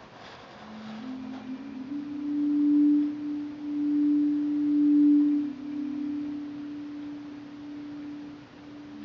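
Slow, meditative background music of sustained pure low tones that swell in and out and step between a few pitches, loudest in the middle.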